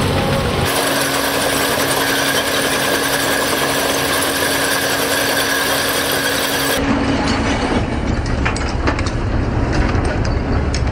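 Excavator working a REMU rotating-disc screening bucket through a heap of mixed waste and compost: steady heavy-machinery noise with a held hum through the middle. About seven seconds in the sound shifts to a deeper rumble.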